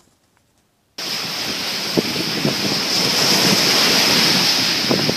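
Surf breaking on a sandy beach, heavily overlaid by wind buffeting the microphone; it cuts in suddenly about a second in after near silence and stays loud and steady.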